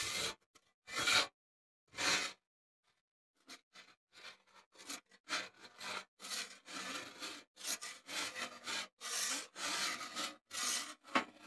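Flat metal scraper dragged over a Blackstone griddle's seasoned steel cooktop, scraping off food residue after cooking. A few separate strokes, a short pause, then a quicker run of repeated strokes.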